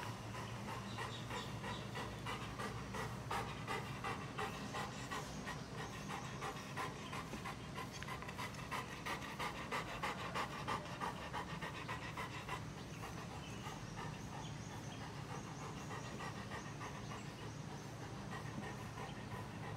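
Golden retriever panting with quick, even breaths.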